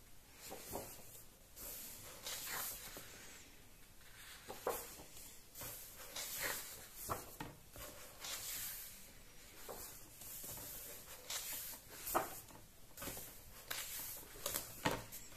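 Pages of a large hardcover comic album being turned by hand: repeated paper rustles and slides as the pages are leafed through.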